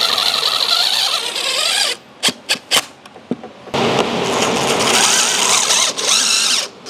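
Cordless DeWalt impact driver driving screws into the railing's mounting brackets. There are two runs of rapid hammering with a motor whine, each a few seconds long, and a few sharp clicks in the pause between them.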